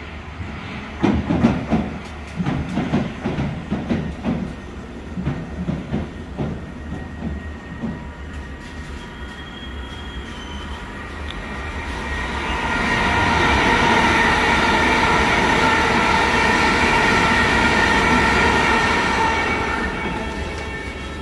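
London Underground S7 Stock District line train pulling into a platform. Its wheels clatter over the rail joints for the first several seconds as it slows to a stop. Then a steady multi-tone whine from the standing train swells up about halfway through, holds for several seconds and fades near the end as the doors open.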